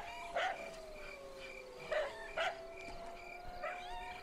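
Dogs barking: about five short, sharp barks, with long drawn-out howling underneath that sinks a little in pitch and then holds. Insects chirp steadily in the background.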